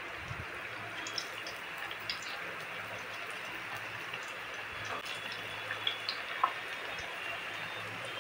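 Aluwadi slices deep-frying in hot oil in a kadhai: a steady sizzle with scattered small crackles and pops.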